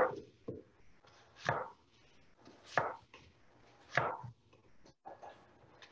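Chef's knife cutting peeled apples on a plastic cutting board, slicing around the core: a sharp knock each time the blade comes through onto the board, four main strokes spaced a little over a second apart, with fainter taps between.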